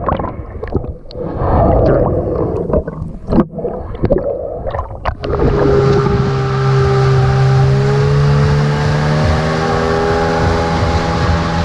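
Small boat outboard motor running at a steady speed, its drone coming in suddenly about five seconds in over rushing air and water. Before that, wind on the microphone with scattered knocks.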